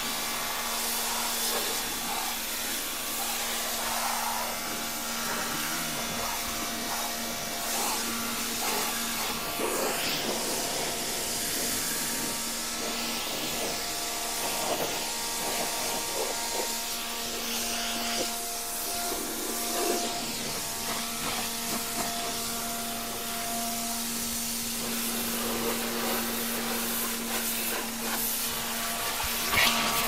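INGCO 1400 W electric pressure washer running: its motor-pump hums under the steady hiss of the water jet spraying against a car wheel and the paving.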